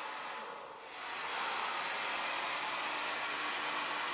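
Hand-held hair dryer with a diffuser attachment blowing steadily, with a faint steady hum under the rush of air. Its sound dips briefly just under a second in, then comes back a little louder.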